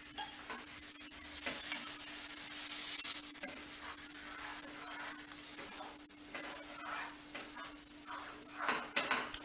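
A spatula stirring and scraping millet and moong dal batter around a hot nonstick kadai as the batter sizzles and cooks, thickening into a dough. A faint steady hum runs underneath.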